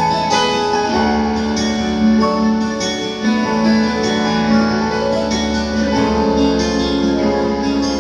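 Instrumental intro of a Malay pop ballad: guitar over sustained chords and a low bass line, before the singing comes in.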